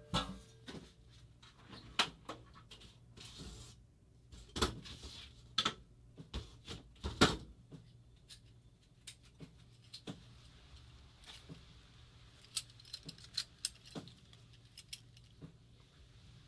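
Irregular clinks, taps and knocks of small metal parts and hand tools being handled on a workbench during disassembly of a paintball marker, with a few louder knocks in the first half and a run of light ticks near the end.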